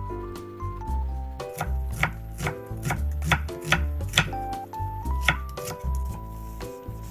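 Kitchen knife slicing an onion into strips on a wooden cutting board: a run of crisp knife strokes, about two or three a second, starting a little over a second in and stopping a couple of seconds before the end.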